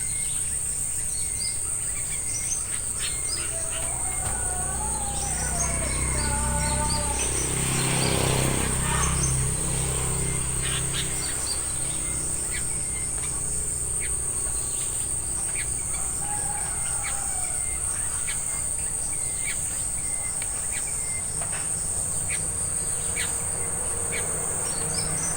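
A steady high insect drone, crickets or cicadas, under scattered bird chirps and a few short warbled bird calls. A low rumble swells and fades around eight seconds in.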